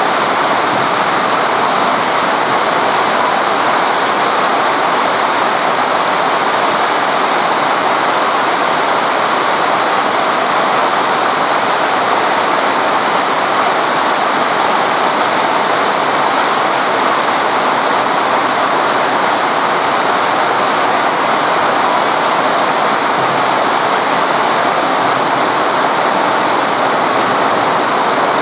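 Torrential rain pouring down in a loud, steady, unbroken hiss.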